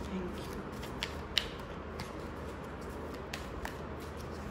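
Tarot cards being handled and shuffled on a table: a few short, sharp clicks of card edges, the loudest about a second and a half in, over a steady low hum.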